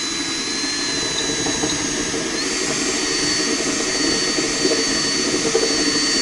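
Cordless drill running continuously, boring out a small lamp hole in the front of an ultralight aircraft's wheel pant. Its whine steps up slightly in pitch about two and a half seconds in.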